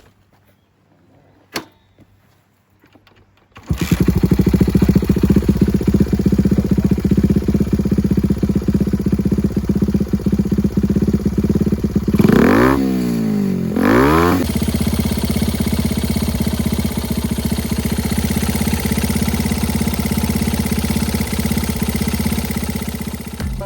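Honda Ape's single-cylinder four-stroke engine starting about four seconds in and idling, revved twice briefly in the middle, then idling again. This is the engine whose abnormal running noise the owner set out to cure with a tappet adjustment.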